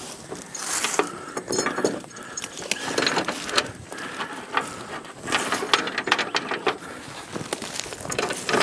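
Irregular metal clinking and rattling, many short sharp clicks in uneven bursts, from hardware being handled while a pulling line is rigged.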